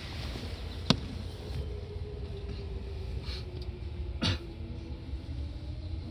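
Seibu 2000 series electric train running, heard from on board: a steady low rumble of wheels on the rails with a faint whine that slowly falls in pitch, and a second whine starting to rise near the end. Two sharp knocks, about a second in and about four seconds in.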